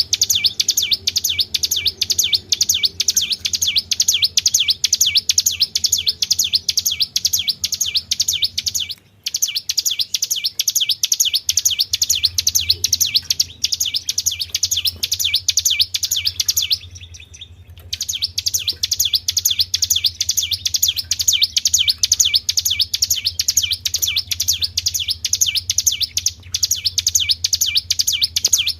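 A songbird singing a rapid 'tribel' song: a fast, even string of high chirps, several a second, which breaks off briefly twice, over a faint steady low hum. It is played as a lure recording to prompt caged songbirds to sing.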